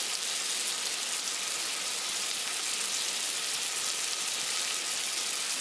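Chicken skewers and chicken skin sizzling steadily on a small charcoal tabletop grill, the fat crackling as it cooks.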